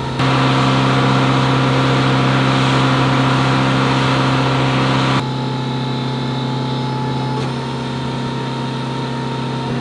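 Steady mechanical hum of flight-line ground equipment running, with a louder rushing noise over it for about the first five seconds that starts and cuts off abruptly.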